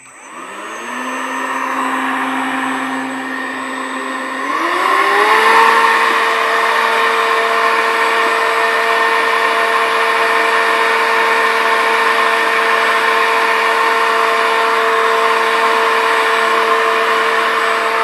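Homemade handheld vacuum cleaner's electric motor and fan spinning up to a steady whine. About four and a half seconds in the pitch rises to a higher speed and holds steady while the nozzle sucks debris off the floor, then the motor cuts off suddenly at the end.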